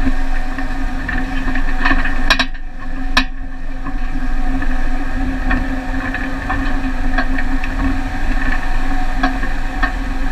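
Vehicle engine running with a steady drone and low rumble, with scattered knocks and rattles. The sound dips briefly, with two sharp clicks, a little over two seconds in.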